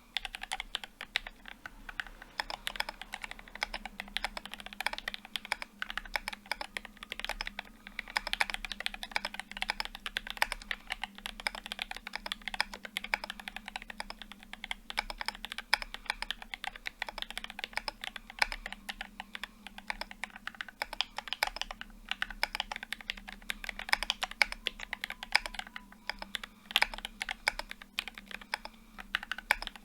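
Continuous typing on a Quasi Alice mechanical keyboard: lubed Gateron Black Ink linear switches in a brass plate, under GMK Olivia keycaps, with dense rapid keystrokes and brief pauses. A faint steady hum lies underneath.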